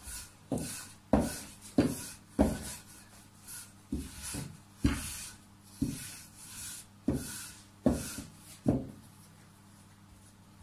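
Rolling pin being pushed back and forth over pizza dough on a kitchen worktop, with a dull knock at each stroke and a soft rubbing between. About a dozen knocks come at an uneven pace, then stop about nine seconds in.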